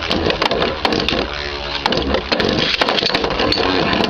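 Two metal Beyblades, Galaxy Pegasis and Meteo L-Drago, spinning and clashing in a plastic battle stadium: a steady whirring rattle broken by many sharp clicks as the tops hit each other and the stadium walls.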